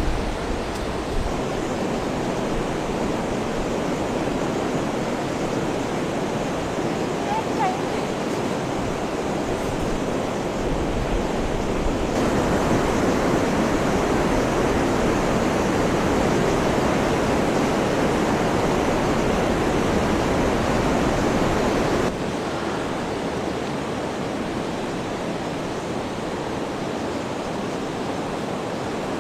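Heavy rain falling as a dense, steady hiss. It gets abruptly louder about twelve seconds in and drops back just as suddenly about ten seconds later.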